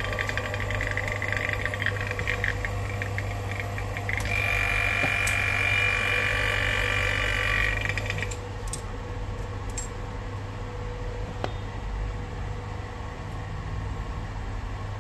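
Nasan Supa Lite Max phone-screen laminating machine running with a steady low hum and a hiss of air. About four seconds in the hiss grows louder, with a faint whistle in it, then cuts off suddenly near the middle, leaving only the hum.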